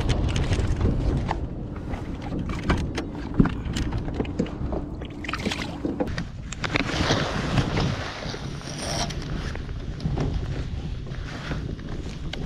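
Wind on the microphone and water noise around a small boat, with scattered handling clicks and a short splash about halfway through as a released mulloway goes back into the water.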